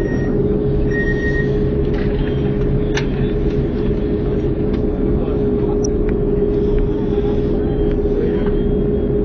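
Cabin noise inside an Airbus A310 taxiing on the ground: the engines running at idle give a steady low rumble with a steady hum-like tone over it. A short click about three seconds in.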